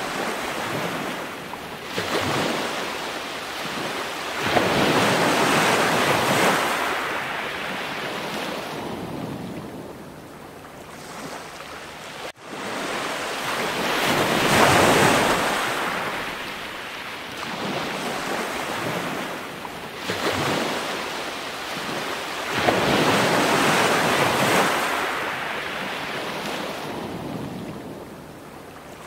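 Ocean waves washing in, surging and ebbing every few seconds, with a brief cut about twelve seconds in.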